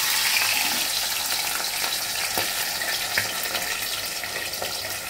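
A piece of marinated rohu fish sizzling and crackling in hot oil in a kadai, just after it was lowered in; the sizzle eases slightly as it goes on.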